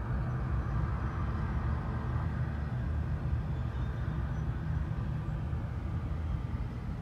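Steady low rumble of a freight train approaching, with no break or change.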